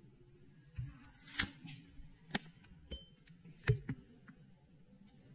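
Metal spoon clinking against a glass jar as chunky quince jam is spooned in: a series of light, separate clinks and knocks, the loudest a little before the end.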